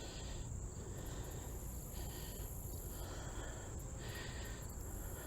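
Insects chirping in summer vegetation: a steady high-pitched trill, with other calls that swell and fade about every second or two.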